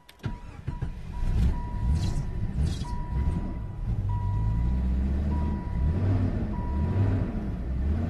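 A 1995 Jeep Grand Cherokee's engine is cranked after a click of the key and catches within a couple of seconds. It then runs rough, its speed rising and falling, while a dashboard warning chime beeps about once a second and stops near the end. The hard start and rough running come from a failing engine computer (PCM), which the owner puts down to its worn-out capacitors.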